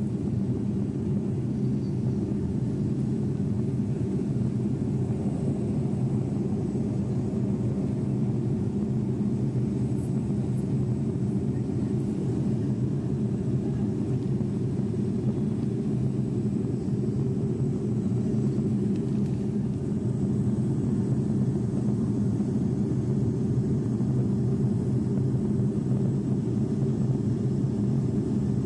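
Steady drone of an aircraft in flight heard from inside the cockpit through a mobile phone's microphone: a constant low rumble of engine and airflow noise that does not change.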